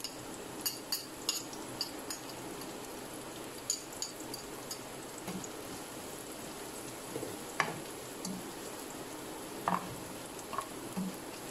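Chopped onions sizzling steadily in a little oil in a frying pan as they are softened, not browned. A metal slotted spatula stirs them, clicking and scraping against the pan now and then.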